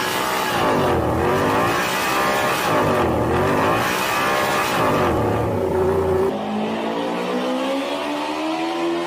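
Yamaha YZR-M1 inline-four MotoGP engine running on a paddock stand, its revs falling and climbing again about every two seconds. About six seconds in the sound changes to an engine holding steady revs that slowly rise in pitch.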